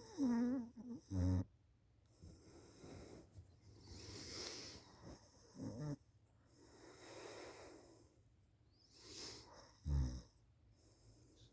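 A person snoring in their sleep: rasping breaths in and out every second or two, with short pitched snores near the start and about six seconds in, and a loud low snore about ten seconds in.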